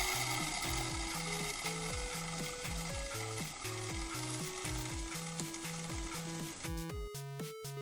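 A loud, steady sizzling hiss that eases slightly, then cuts off abruptly about seven seconds in, over background music with a repeating stepped bass line.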